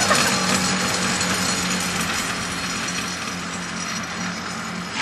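Air-cooled 1985 Polaris 440cc two-stroke snowmobile engine running steadily at low revs with a rattly, mechanical edge, slowly growing quieter.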